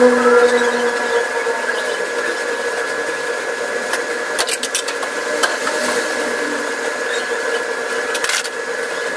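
A steady hum of several held tones, with a few faint clicks around the middle.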